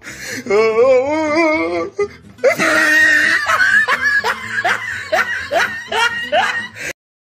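A person laughing: a wavering, drawn-out laugh first, then a quick run of short 'ha-ha' bursts, about three a second. It cuts off suddenly near the end.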